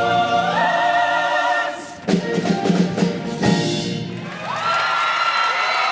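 Show choir singing with its band: a held chord steps up, breaks off, and a few sharp band hits follow. Then the voices slide up into a long, loud held final chord.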